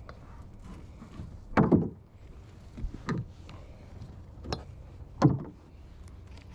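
Hollow knocks and thumps on a plastic folding kayak, four or five spread over several seconds, the loudest a double knock about a second and a half in.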